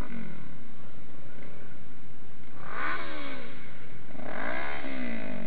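Motorcycle engine running loud, its pitch rising and then falling sharply twice, about halfway through and near the end, as it revs up and eases off.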